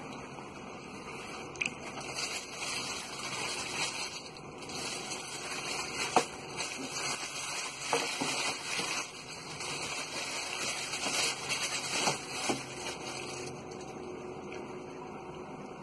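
Tissue paper rustling and crinkling as hands unpack a cardboard shoebox, with a few sharp knocks of the box and lid being handled.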